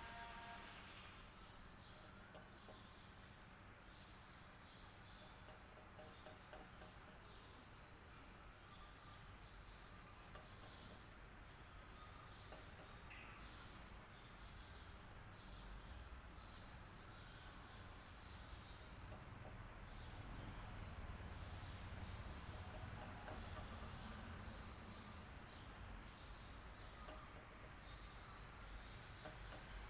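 Faint electric fan hum with a steady high-pitched insect trill over it, like crickets.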